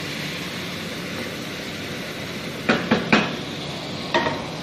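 Sharp metal knocks on an aluminium cooking pot holding sizzling masala: three quick ones a little past the middle and one more near the end, over a steady hiss.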